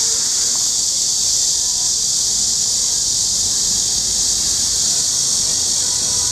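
Cicadas in the trees, a loud, steady, unbroken high-pitched drone.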